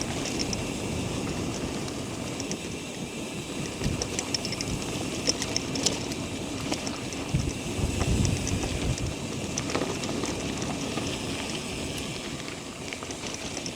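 Bicycle riding over rough ground: a steady rumble of tyre noise with scattered small rattles and clicks.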